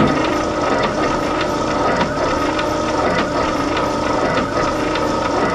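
Ford 8N's four-cylinder flathead engine cranked over on the starter with its spark plugs out, turning with an even, repeating pulse during a compression test. It starts abruptly. The cylinder under test reads low, about 60 psi against a 90 psi minimum.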